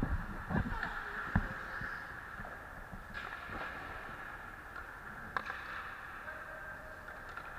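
Hockey skate blades hissing steadily across rink ice, heard close up from the skater's own gear, with a few short sharp knocks.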